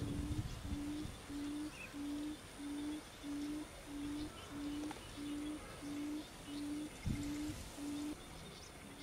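Barred buttonquail giving its low booming hoot call: a long, even series of identical hoots, about one and a half a second, stopping about eight seconds in. A low thump comes about seven seconds in.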